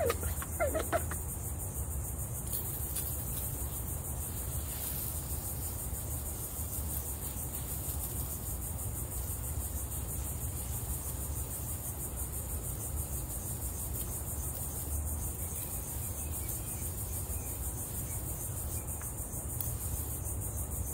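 Steady, high-pitched insect chorus, crickets or similar, pulsing evenly throughout, over a steady low rumble.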